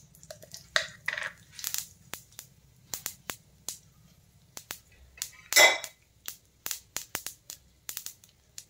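Black mustard seeds popping and crackling in hot cooking oil, in irregular sharp pops that come more often toward the end, with one louder burst of crackling a little past halfway.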